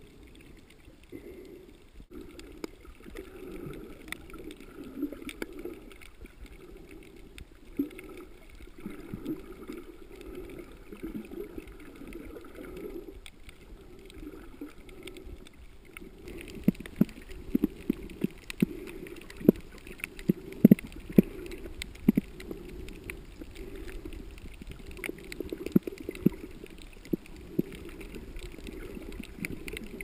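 Muffled underwater sound inside a camera's waterproof housing: a low, steady rush of moving water, with many sharp clicks and crackles through the second half.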